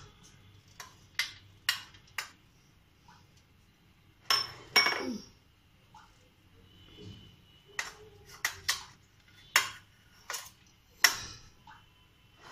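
A handheld cheese grater clinking and knocking against a glass baking dish while cheese is grated over it. There are about ten sharp clinks with brief ringing, and a longer rattling clatter about four seconds in.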